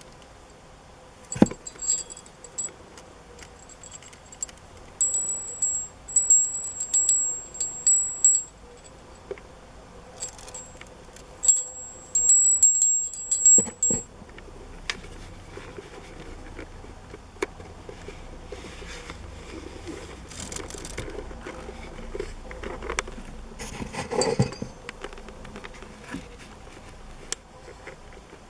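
Small brass call bell with a rat figurine handle, shaken in three bursts of high, bright ringing, the longest lasting a few seconds. After that, only quieter rustling and a few knocks, the loudest about 24 seconds in.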